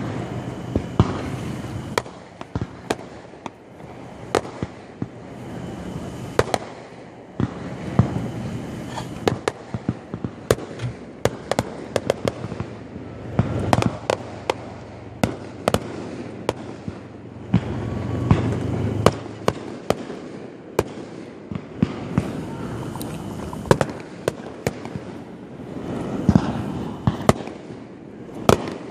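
Aerial fireworks shells bursting in quick, irregular succession: dozens of sharp bangs and cracks over a continuous low rumble.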